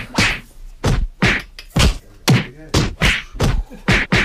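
A run of sharp hand slaps and claps, about two a second in a rough rhythm, some with a duller, lower thump.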